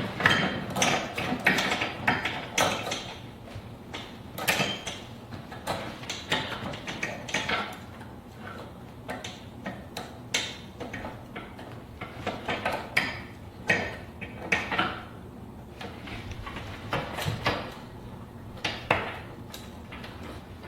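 Metal handcuffs and their chain clinking and rattling against a bench in irregular bursts of sharp clicks, busiest in the first few seconds.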